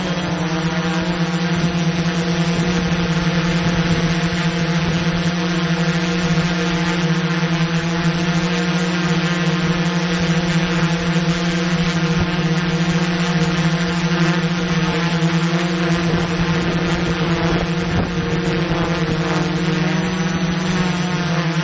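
Small camera drone's propellers humming steadily at one even pitch while it hovers.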